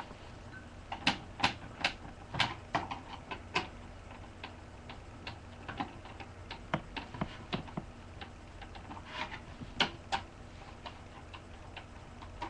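Screwdriver turning long screws out of a desktop computer by hand: irregular small metallic clicks and ticks as the tip works in the screw heads, most of them in the first few seconds and another pair about ten seconds in, over a steady low hum.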